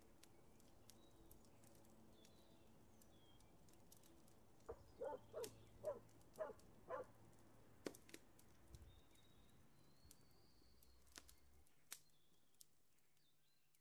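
Faint outdoor ambience with small birds chirping, and a little under five seconds in, a quick run of about six calls from an animal, followed by a few sharp clicks.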